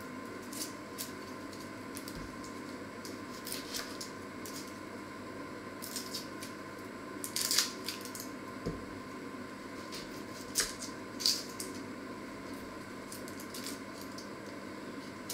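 Boiled egg being peeled by hand: scattered small crackles and clicks of eggshell cracking and coming away, with pieces dropping onto a wooden cutting board. The sharpest clicks come about halfway through, over a steady background hum.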